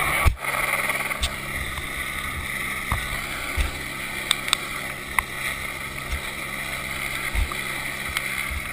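Helicopter running overhead as a steady drone, heard from the end of a long line, with wind buffeting the microphone in irregular low thuds. There is a sharp knock just after the start and a few faint clicks later on.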